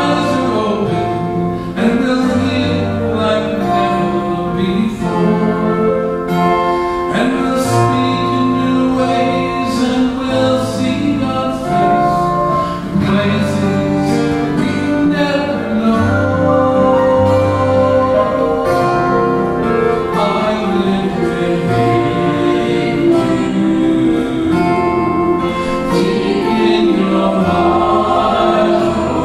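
Men and women singing a hymn together, accompanied by acoustic guitar.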